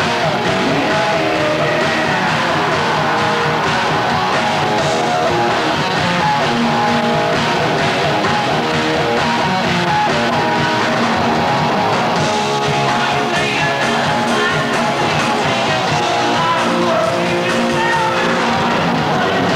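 Heavy metal band playing live on stage, with electric guitars and drums.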